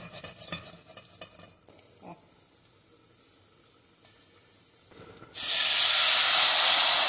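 Garlic rasped on a metal hand grater over the pot in a quick run of strokes, then the grated garlic sizzling softly in hot chicken fat. About five seconds in, water poured from a kettle into the hot pot rushes and hisses loudly for about two seconds.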